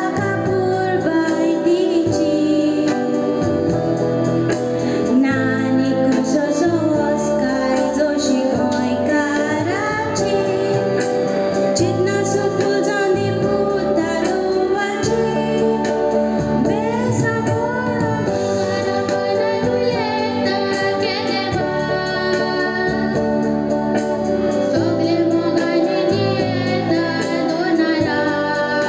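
A girl singing a Konkani song through a microphone, over steady live accompaniment that includes a guitar.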